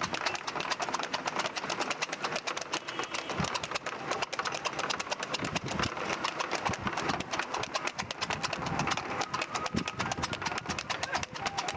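A harness horse trotting fast while pulling a two-wheeled tanga cart: a quick, dense clip-clop of hooves mixed with the rattle of the cart's wheels.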